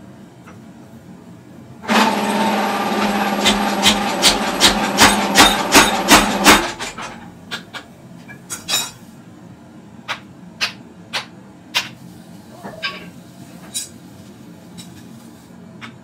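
Power hammer starts up and strikes hot steel at about two to three blows a second for roughly four and a half seconds, then stops. Lighter metal knocks and clinks follow, about one a second.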